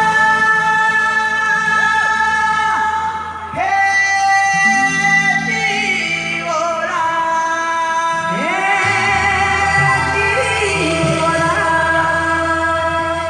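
Singing in long held notes, each one sliding up into its pitch and wavering with vibrato, over a steady low accompaniment. There is a short dip about three and a half seconds in before the next phrase starts.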